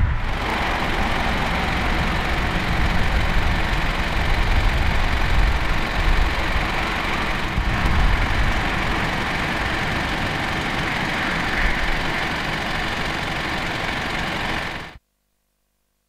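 An engine idling steadily under a constant rushing noise, with a low rumble. It cuts off suddenly near the end.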